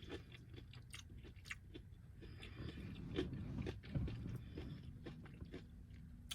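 Quiet close-up chewing and biting of fried food, with small crunches and wet mouth clicks.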